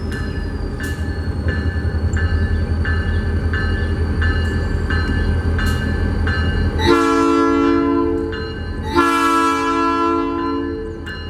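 Diesel locomotive running with a steady low rumble while its bell rings about twice a second, then two long blasts of its multi-note air horn about seven and nine seconds in.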